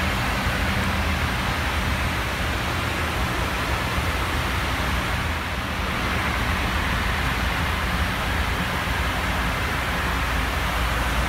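Steady aircraft cabin noise aboard a parked Fokker 70: an even airflow hiss over a constant low hum.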